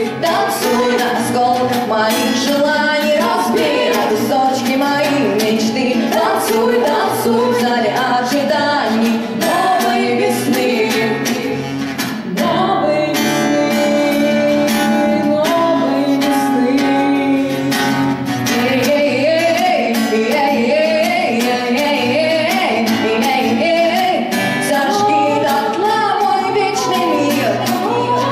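A live song: a female voice singing over a strummed acoustic guitar, with a run of longer held notes about halfway through.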